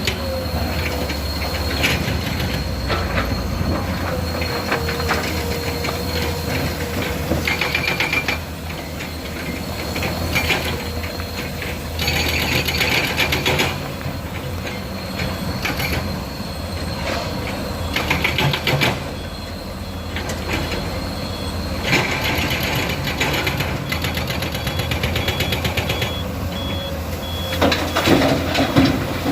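Komatsu PC200 hydraulic excavator's six-cylinder diesel engine running steadily while it works, with a steady high whine. Every few seconds it rises for a second or two into a louder, rapidly pulsing spell.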